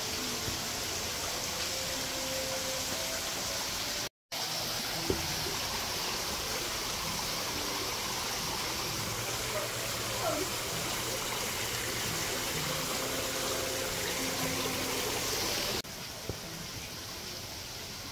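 Running water rushing steadily, with faint voices in the background; the rush drops in level near the end.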